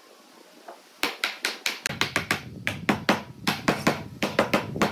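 Rapid series of sharp wooden taps, about six a second, starting about a second in: a freshly glued wooden frame being tapped to seat its corner joints.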